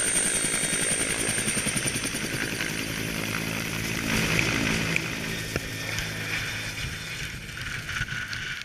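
Helicopter lifting off close overhead: fast rotor-blade chop and a high turbine whine over the rush of its downwash. The whine fades after about two seconds, and the sound eases a little as it climbs away.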